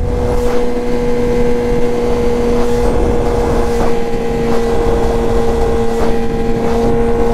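Sportbike engine running hard at a steady, nearly unchanging pitch while the bike travels at speed, over a low rush of wind noise on the microphone.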